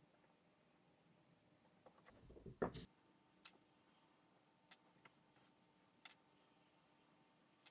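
Near silence broken by scattered single sharp clicks and one brief, louder clatter about two and a half seconds in.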